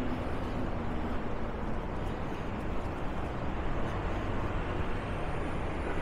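City street traffic: a steady low rumble of passing vehicles' engines and tyres.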